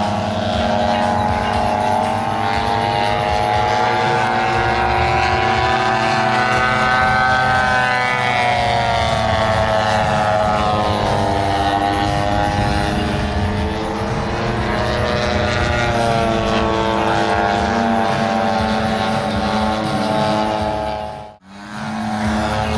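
Radio-controlled Ultimate aerobatic biplane's Desert Aircraft DA-85 gas engine and propeller running hard through aerobatics, its pitch slowly rising and falling as the throttle and the plane's distance change. The sound drops out for a moment near the end.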